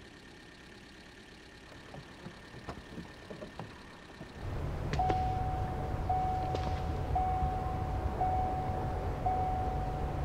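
Audi A3 idling with its driver's door open and its warning chime repeating about once a second. Before the engine comes in, about four seconds in, there are a few soft clicks in a quiet car cabin.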